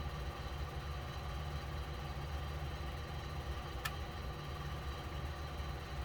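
A steady low droning hum with one short click about four seconds in.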